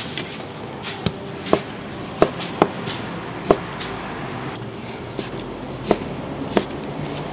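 Chef's knife slicing through beef top blade steaks and knocking down onto the cutting board. About eight sharp, irregular knocks come roughly every half second to second.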